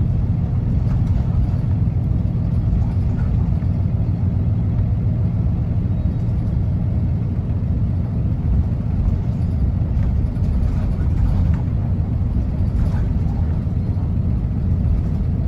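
Isuzu U-LV large city bus with a Fuji Heavy Industries 7E body under way, heard from inside the passenger cabin: a steady low engine and road rumble, with a few faint clicks now and then.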